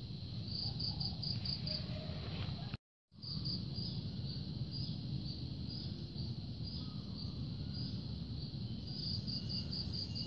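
Insects chirping in short high pulse trains, about four to five chirps a second, over a low steady rumble. The sound cuts out completely for a moment about three seconds in.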